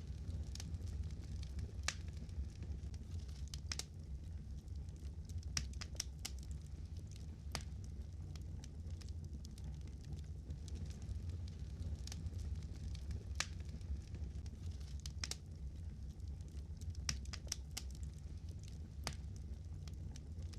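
Fire crackling: irregular sharp pops and snaps, about one or two a second, over a steady low rumble.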